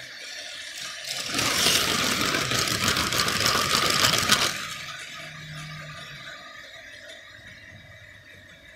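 Lego train of tank wagons running past close by, its plastic wheels rattling and clicking rapidly over the plastic track. It is loud for about three seconds, then fades as it moves away.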